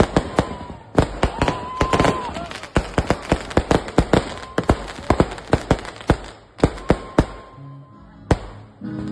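Aerial fireworks going off overhead: a rapid, uneven run of sharp bangs and crackles, several a second, thinning out near the end.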